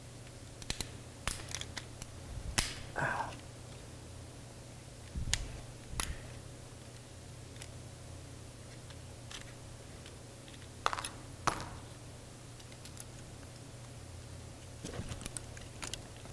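Small plastic and metal parts of a Canon Rebel DSLR body being pried at and handled with a small tool: scattered light clicks and short scrapes, in a few clusters, over a faint steady hum.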